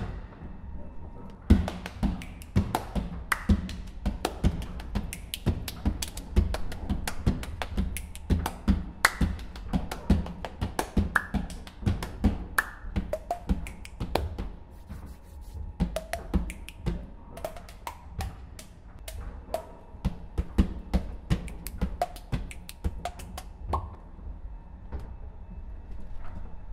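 Body percussion: a fast, dense rhythm of finger snaps, hand taps and foot taps on a wooden floor, with short pitched pops mixed in. A low steady hum runs underneath.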